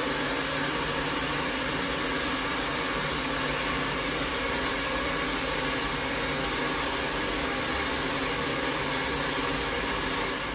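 Handheld hot-air dryer running steadily, blowing into an empty glass aquarium to dry out a leaking seam before it is resealed; it cuts off near the end.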